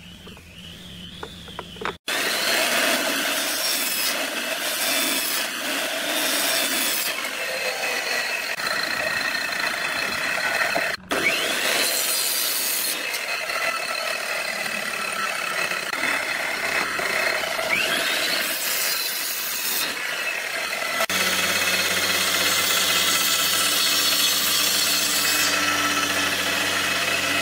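Electric miter saw cutting small hardwood blocks, a dense, noisy sound of the spinning blade in wood, broken off abruptly about two seconds in and again about eleven seconds in. From about 21 seconds a steadier machine sound with a low hum takes over.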